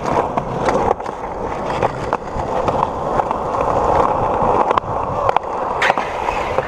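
Skateboard wheels rolling on a concrete sidewalk: a steady rumble broken by several sharp clacks.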